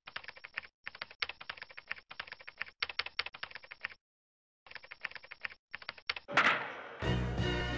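Fast typing on a computer keyboard: runs of quick key clicks with short pauses between them. About six and a half seconds in comes one louder sharp hit, and a second later a hip hop beat starts.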